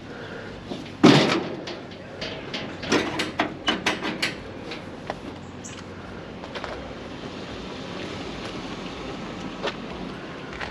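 A loud bang about a second in, then a quick run of knocks and clatters over the next couple of seconds, as scrap is handled and loaded onto a truck.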